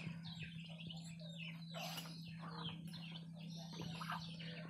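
A brood of ducklings peeping, many short falling chirps overlapping without a break.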